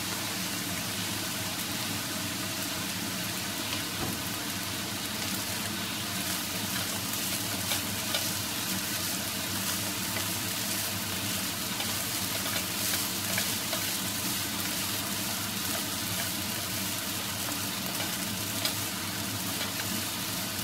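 Rice frying in a nonstick frying pan, a steady sizzle throughout. From about five seconds in, two wooden spatulas toss and scrape the rice against the pan, adding light scrapes and taps.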